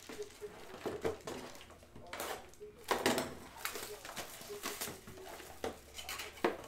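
Scattered handling noises: several short knocks and clicks with brief rustles, as of things being moved about on a table.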